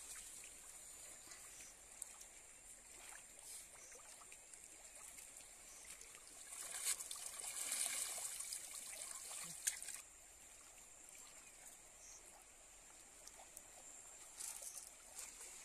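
Shallow river water splashing and trickling as a cast net is hauled in and lifted out, water streaming off the mesh. It swells for a few seconds in the middle and then stops suddenly.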